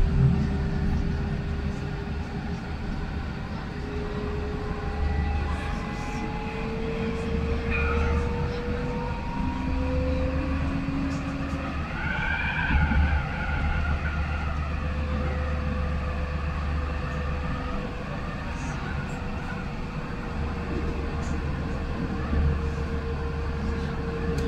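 Citadis 302 electric tram running along its line, heard from the driver's cab: a steady low rumble of wheels on rail, with the traction motors' whine gliding slowly up and down in pitch. A brief higher, wavering tone comes about halfway through.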